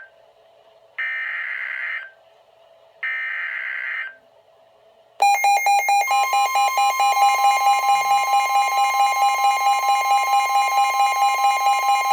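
NOAA Weather Radio SAME alert header: two one-second bursts of buzzy digital data tone about a second apart. About five seconds in, the weather radios' alert alarms go off, a loud fast-pulsing electronic beep joined about a second later by a steady higher tone. This signals an incoming severe thunderstorm warning for the radio's own county.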